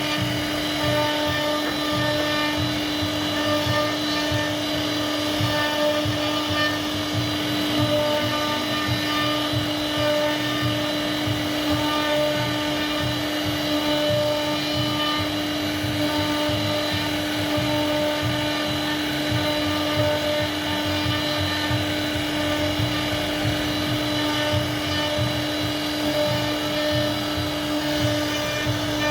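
CNC router spindle running at a steady whine while its bit carves a hardwood panel, with an uneven low chatter from the cut underneath.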